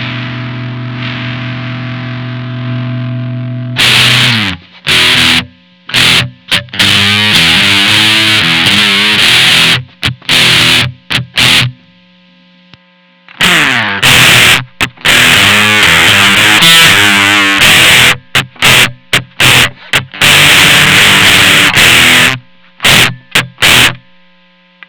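Electric guitar played through a Maestro Fuzz Tone FZ-M fuzz pedal with a low-gain fuzz tone. A chord rings out for about four seconds, then come loud, choppy fuzz riffs with short stops and a brief pause halfway. The playing stops near the end, leaving a low steady hum.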